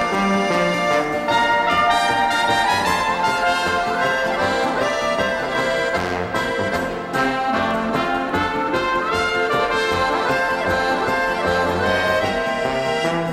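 Instrumental alpine folk music from a small band: trumpet, clarinet, piano accordion, acoustic guitar and tuba playing a lively tune with a steady beat, the brass in front.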